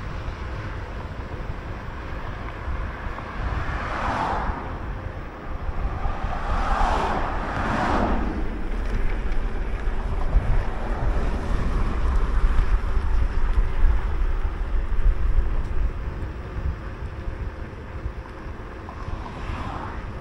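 Wind buffeting the microphone of a moving bicycle, a steady low rumble. Two passing cars swish by, about four and seven seconds in.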